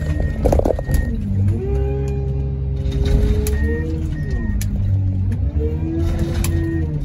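Car crusher working under load: a steady low engine drone with a hydraulic whine that drops and rises in pitch several times. There is metal crackling in the first second.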